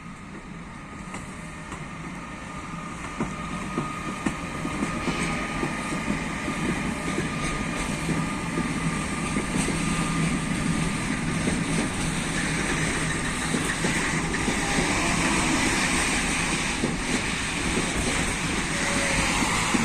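A train approaching and running past on the track, growing steadily louder over the first dozen seconds and then staying loud, with repeated clicks of the wheels over the rails.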